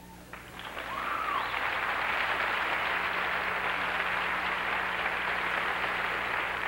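Large theatre audience applauding, swelling over the first second and then holding steady, with one short rising-and-falling whoop about a second in.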